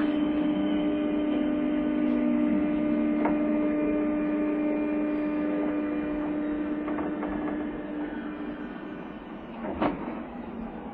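JR East 201 series electric train heard from inside the car: a steady hum over running noise, fading out as the level drops about three-quarters of the way through, with a couple of short knocks, the loudest near the end.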